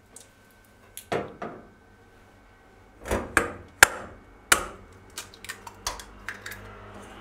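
Sharp knocks and taps of an egg being cracked, then a run of lighter clicks as the shell is pulled apart and the egg drops into a stainless steel bowl.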